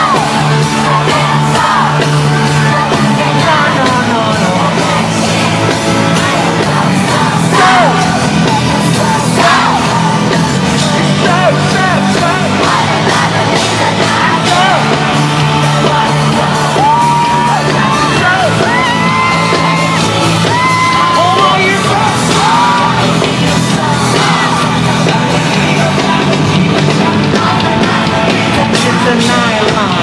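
Live K-pop concert music amplified through an arena's sound system, with a crowd of fans screaming and singing along, recorded from within the audience.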